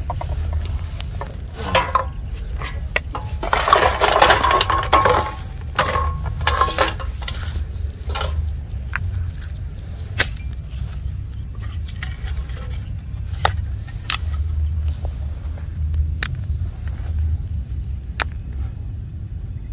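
Hands working with a metal basin, a knife and plastic bottles: scattered clinks, knocks and rustling, busiest and loudest about four seconds in, then sparser sharp clicks. A steady low rumble lies underneath.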